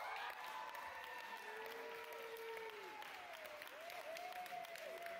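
Audience applauding, a dense patter of clapping, with drawn-out high voices calling out over it.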